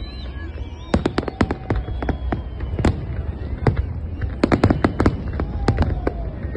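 Fireworks display: aerial shells bursting in a rapid, irregular string of sharp bangs and crackles, beginning about a second in and thickest about two-thirds of the way through.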